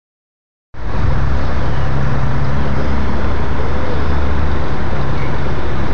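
Loud, steady machine hum with a rushing noise over it, cutting in abruptly under a second in.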